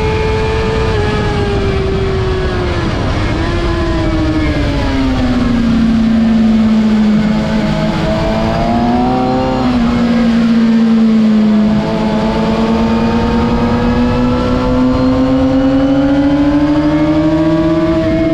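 2006 Suzuki GSX-R750 sport bike's inline-four engine at track speed, recorded on board with heavy wind rush over the microphone. The engine note drops over the first few seconds as the bike slows for a corner, with a brief step up about three seconds in, holds low through the turn, then climbs steadily over the last six seconds under acceleration.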